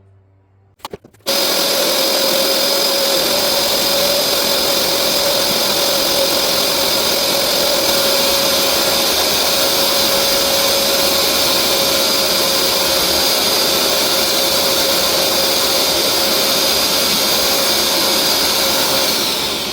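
Hoover carpet cleaner switched on with a click, its motor running steadily with a high whine, then starting to wind down near the end.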